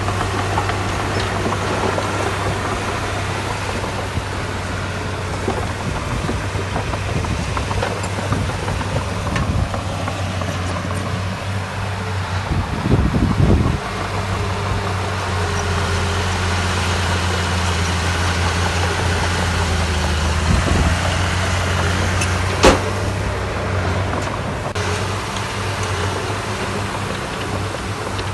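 Diesel engine of heavy earthmoving machinery running steadily, with a louder rumble swelling about halfway through and one sharp knock near the end.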